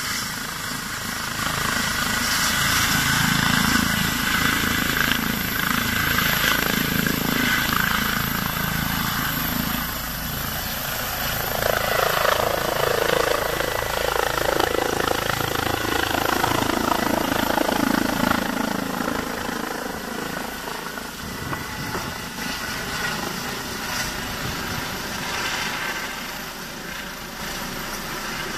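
Air-rescue helicopter taking off: turbines and rotor blades at full power with a thin high whine, growing louder as it lifts off and passes overhead, then fading as it flies away.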